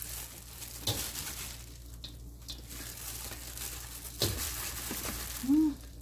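Plastic-gloved hands tossing and rubbing seasoned garlic chives in a stainless steel bowl: soft crinkling and rustling of glove and leaves, with two light knocks. A short hum, the loudest sound, comes near the end.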